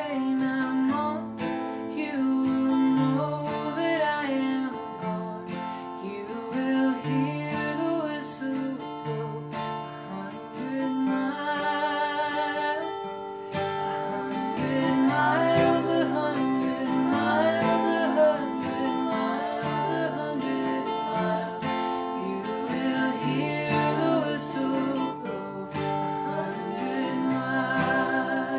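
Music: acoustic guitar strummed and picked under a wavering melody line, with stepping bass notes.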